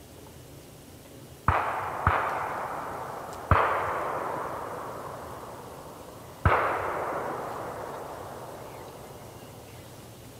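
Four gunshots: two in quick succession about a second and a half in, a third about a second and a half later, and a fourth about three seconds after that, each followed by a long fading echo.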